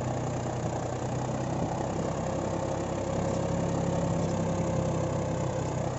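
John Deere 5405 tractor's diesel engine running steadily under heavy load, pulling a laser land leveller filled with soil. The engine is lugged down by the load, and its note gets a little louder about two seconds in.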